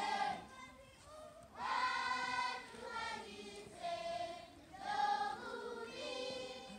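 Large group of schoolchildren singing together unaccompanied, in long held phrases with a short pause about a second in.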